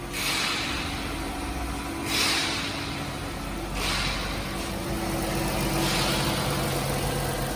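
Engine of a 2017 Ram ProMaster 2500 van idling, heard with the hood open: a steady low hum under a hiss that swells briefly several times.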